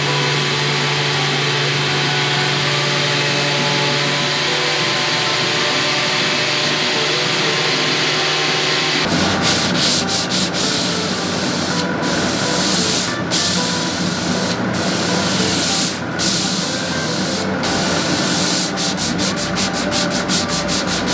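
Random-orbit sander with a dust-extraction hose running steadily on an oak drawer's edge. About nine seconds in it gives way to hand sanding with a sanding sponge: rasping back-and-forth strokes about a second apart, quickening near the end.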